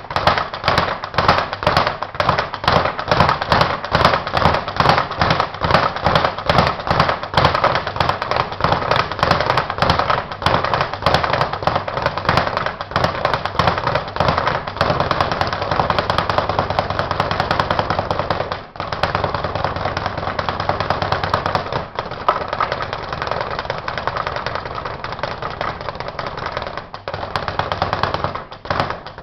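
Speed bag being punched continuously, the bag rattling rapidly against its rebound platform in a fast, even drumming rhythm, with a couple of brief breaks past the middle.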